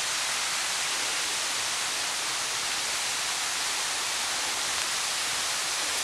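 Waterfall of about 40 to 50 feet pouring down a rock face, a steady, even rushing of falling water that is loud up close.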